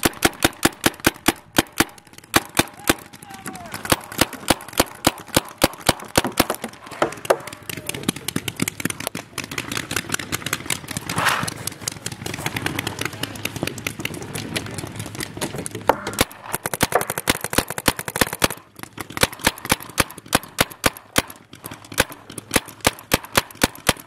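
Paintball markers firing: strings of sharp shots several a second, with fainter shots from further off between them.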